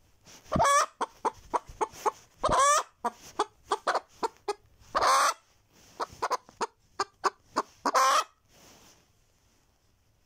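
A naked-neck hen cackling close to the microphone: runs of short clucks, each capped by a long drawn-out squawk, four times over. This is the cackle a hen gives around laying an egg.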